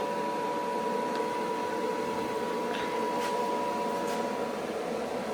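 Steady machine hum with a constant high tone, and a few faint clicks about three and four seconds in.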